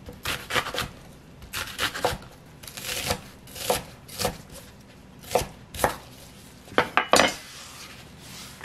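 Cleaver-style kitchen knife dicing an onion on an end-grain wooden cutting board: irregular knocks of the blade on the wood, about two a second. Near the end, a softer rustle as the diced onion is scooped up by hand.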